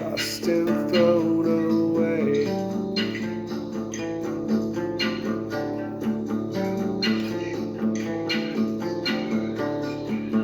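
Music: an instrumental passage of acoustic guitar strumming in a steady rhythm, with a sliding melody line over the first couple of seconds.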